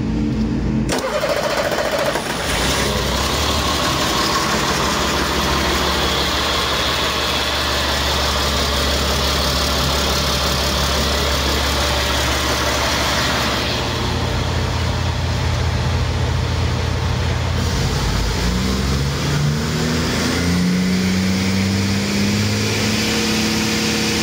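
Caterpillar C7 Acert inline-six turbo diesel running on an engine test stand, a steady idle. About three-quarters of the way through the engine speed rises in steps and holds at a higher speed.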